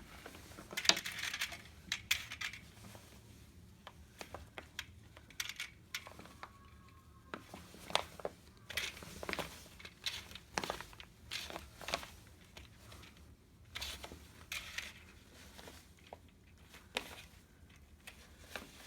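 Drapery pins clicking into the carriers and end bracket of a drapery rod, with the pleated fabric rustling as it is handled; irregular sharp clicks with short stretches of rustling between them.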